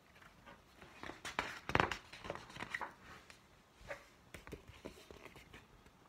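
A picture book's paper pages being turned and handled: a run of irregular rustles and soft knocks, loudest about two seconds in.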